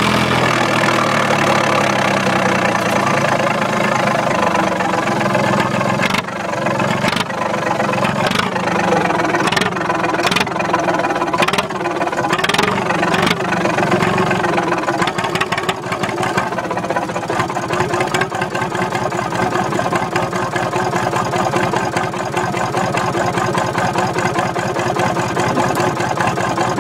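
1961 Massey Ferguson 35's three-cylinder diesel engine running as the tractor drives along, heard from the seat. The engine note drops at the start, wavers with several brief dips in the middle, then settles steady.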